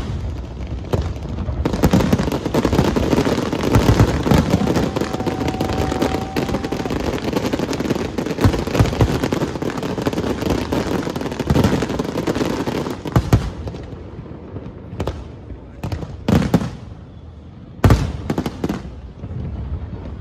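Fireworks display: a dense barrage of rapid bangs and crackling for most of the first thirteen seconds, thinning to a few separate loud bangs near the end.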